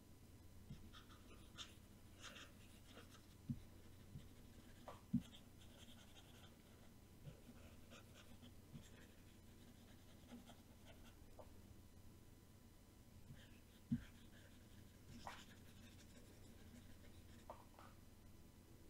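Near silence: faint room hum with light scratching and a few soft knocks.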